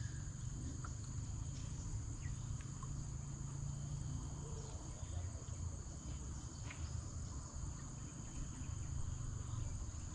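Insects in the riverbank vegetation droning steadily at one high pitch, over a low, steady rumble.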